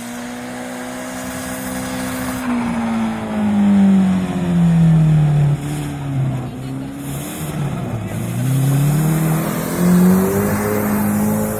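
Rally car engine coming closer at steady revs and getting louder, then the revs fall over a few seconds as it slows, and climb again as it accelerates away.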